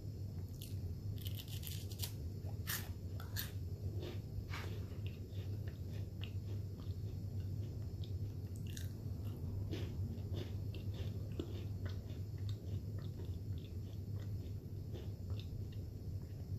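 Crisp vanilla cream wafer cookie being bitten and chewed: sharp crunches, densest in the first few seconds, then lighter crackles of chewing. A steady low hum runs underneath.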